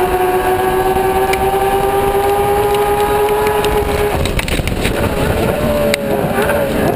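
Race car engine heard onboard, running at full throttle in a high gear with its pitch climbing slowly. About four seconds in it lifts off, with a rough stretch of crackles and pops as the car slows, and a lower, wavering engine note comes back near the end.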